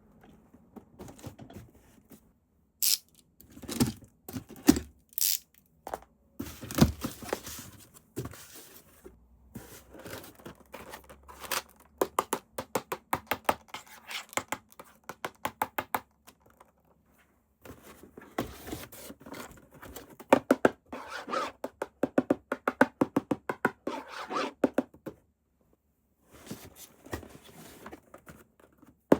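Packaging being handled and opened: scraping, tearing and thunks, followed by long runs of rapid, even clicking at about eight clicks a second.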